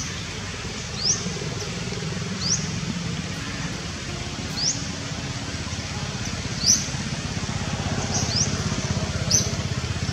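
Short, high chirps that rise quickly in pitch and repeat about every one to two seconds, over a steady hiss of rain.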